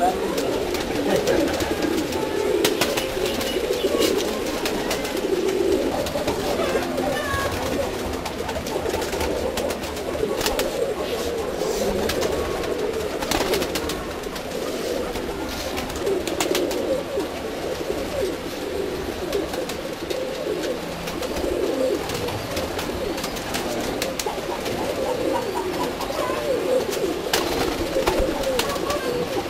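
Many domestic pigeons cooing together in a loft, a continuous overlapping murmur of coos, with scattered sharp clicks.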